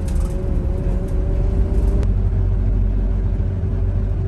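A bus's engine and road rumble heard from inside the cabin: a heavy low rumble with a steady drone that rises slightly in pitch, and a single click about two seconds in.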